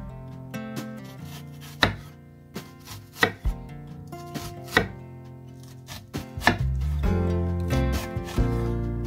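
Chef's knife slicing through a halved onion and knocking on a bamboo cutting board, a sharp tap every second or so, over soft background music that grows louder near the end.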